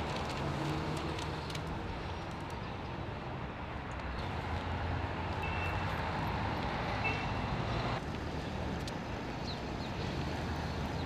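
Street traffic noise: cars running by in a steady wash of sound that shifts abruptly about four and eight seconds in.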